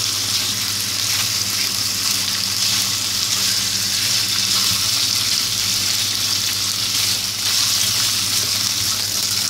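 Bone-in beef short ribs sizzling steadily in hot oil in a non-stick pan, moved about now and then with a silicone spatula. A steady low hum runs underneath.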